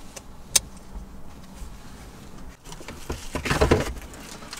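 Baby car-seat mirror being fitted and adjusted on a rear headrest: a sharp click about half a second in, then a louder burst of rattling and rustling about three and a half seconds in.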